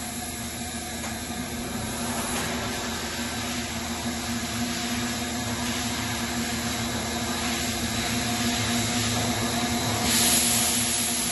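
Thermoforming machine running, a steady hum under an even hiss, with a louder burst of air hissing about ten seconds in.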